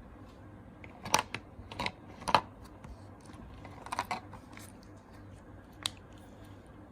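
Sharp clicks and taps of small hard objects being handled: three in the first couple of seconds, a short cluster in the middle, and one more near the end.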